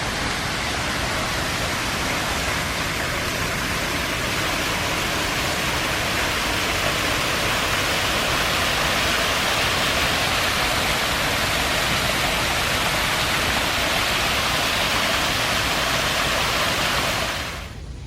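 Steady rushing noise of falling water, even and unbroken, which cuts off abruptly near the end.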